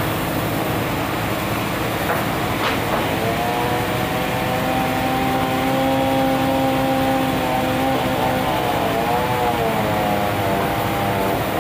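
Sawmill machinery running steadily, with a droning hum that sets in about three seconds in and wavers in pitch near the end. A couple of light knocks of sawn meranti boards being handled come about two and three seconds in.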